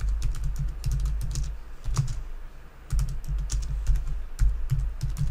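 Typing on a computer keyboard: quick runs of keystrokes separated by short pauses.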